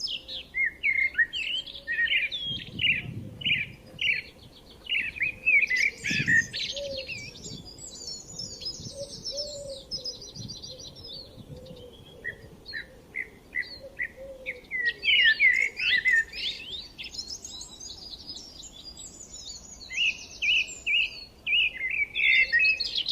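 Several forest songbirds chirping and singing in spring: runs of short, quick chirps mixed with higher, faster trills, coming in busy spells with brief lulls in between.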